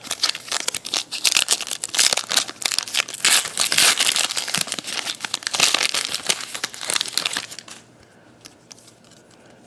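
A trading-card pack wrapper being torn open and crinkled, a dense crackling that runs for about eight seconds, then dies down to a few faint clicks.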